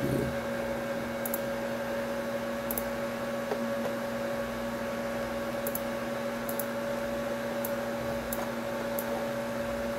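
Steady electrical hum with a hiss, the background noise of a desk recording setup. Faint, short mouse clicks come scattered through it, about one a second.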